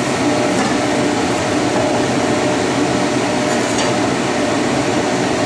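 A steady loud rushing noise in a home kitchen, with a few light scrapes of a metal ladle as stir-fried tomato and egg are pushed out of a wok into a glass dish.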